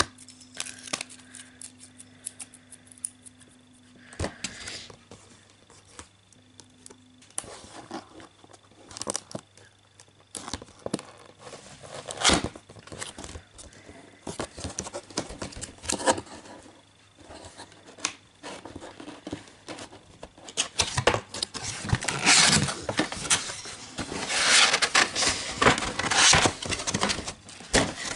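Anime figure packaging being opened and unpacked by hand: scattered clicks, tearing and rustling of cardboard and plastic, growing into louder, denser crinkling and rustling over the last several seconds.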